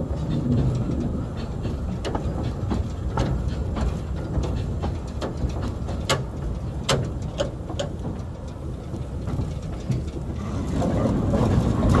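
Narrow-gauge wood-fired steam locomotive heard from its footplate: a steady low rumble with scattered sharp clicks and knocks.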